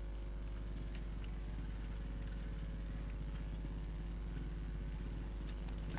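Honda trials motorcycle engine running steadily at low revs, with a fast, even pulse.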